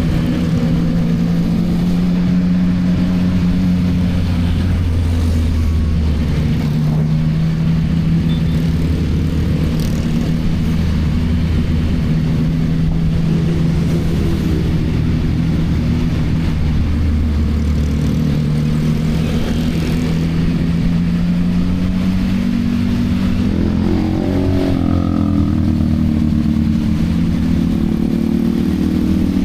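CFMoto 675NK motorcycle's inline three-cylinder engine on its stock exhaust, running under way, its pitch rising and falling several times with throttle and gear changes.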